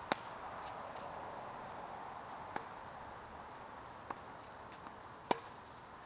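Tennis ball struck and bouncing during a rally on a hard court: a sharp racket strike on a backhand right at the start, then single pops of hits and bounces about two and a half, four and five seconds in. The one a little after five seconds is loud.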